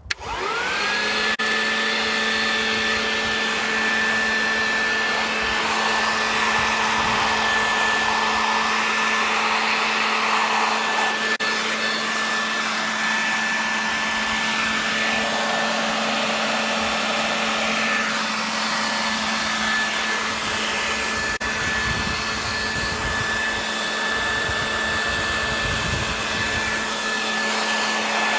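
Electric blower switched on, its motor spinning up within about a second to a steady high whine over a rush of air, running unbroken. This is the 150 mph sustained wind test of the probe.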